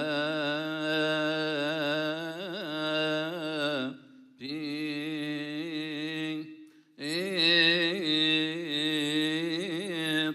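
A man's voice chanting a long melismatic Coptic liturgical phrase, the held notes wavering in ornaments, with two brief breath pauses, about four and about seven seconds in. This is the drawn-out chant on the bishop's title before his name in the introduction to the Gospel reading.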